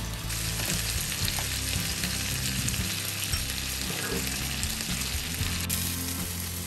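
Taco of pulled pork and melting cheese in a tortilla frying in an oiled pan: a steady sizzle.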